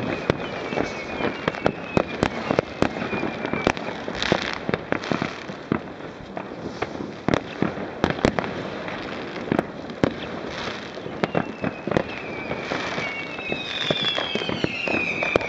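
New Year's fireworks going off all around: a steady scatter of bangs, some loud and close, some distant, with short bursts of hissing crackle. Whistles glide down in pitch near the start and again near the end.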